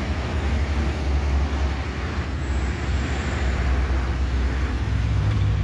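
Road traffic noise: a steady low engine rumble with a wash of tyre and road noise, swelling slightly near the end.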